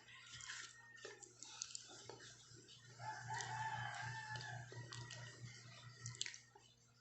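A rooster crowing once in the background, a long held call of about two seconds starting around three seconds in, with a few sharp clicks before and after.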